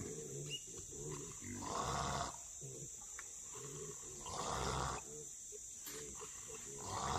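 Trapped wild hogs grunting, with a loud raspy snort about every two and a half seconds.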